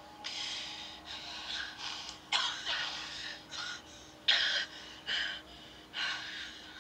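Boys gasping and breathing hard in short, irregular bursts, the sharpest about two and four seconds in, heard through a TV speaker.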